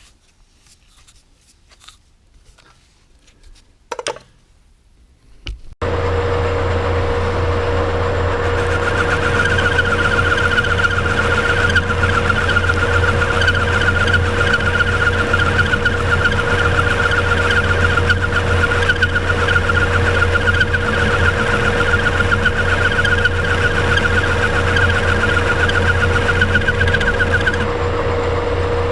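A metal lathe, the old Monarch, starts abruptly about six seconds in after a few quiet handling clicks and a knock, then runs steadily with a low hum and a constant whine. A higher, grainy tone joins it about three seconds after start-up and stops shortly before the end.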